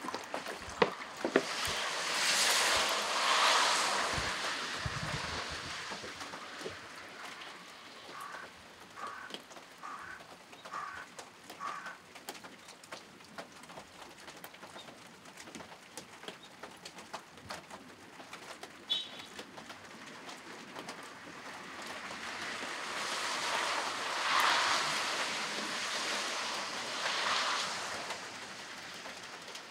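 Rainy outdoor ambience with two slow swells of rushing noise, one early and one near the end. In the middle a bird calls a run of about seven short, evenly spaced notes.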